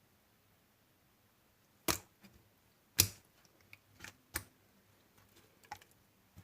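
Slime being played with by hand, giving several sharp pops as trapped air bursts, the loudest two about two and three seconds in, with a few smaller pops after.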